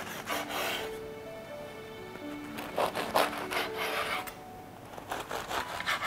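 Knife sawing through crisp fried dough sticks (youtiao) on a cutting board: crunchy, rasping back-and-forth strokes that come in several short bouts.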